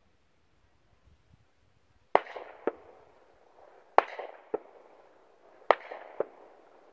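Three distant gunshots fired from about a mile away, roughly 1.7 s apart. Each is a sharp crack followed about half a second later by a second, weaker bang and a short rolling echo.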